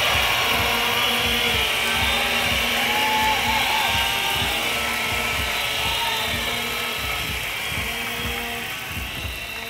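Large outdoor crowd applauding and cheering, with some held, wavering tones from the crowd over the din. It fades gradually toward the end.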